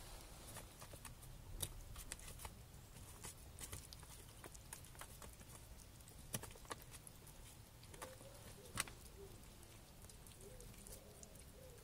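Mostly quiet room with faint, scattered clicks and rustles of handling and small movements, and a sharper click about nine seconds in.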